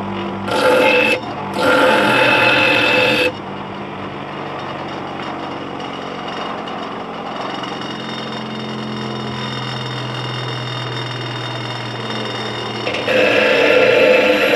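Cheap bench grinder running, a metal workpiece pressed against the spinning wheel in loud grinding bursts, twice in the first three seconds and again about a second before the end. In between, the motor runs unloaded with a steady hum.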